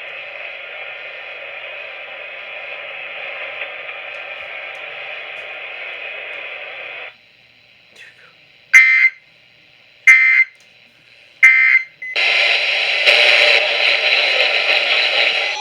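Steady radio hiss, then three short bursts of warbling Emergency Alert System data tones about a second and a half apart: the end-of-message signal that closes the activation. Loud static-like noise follows near the end.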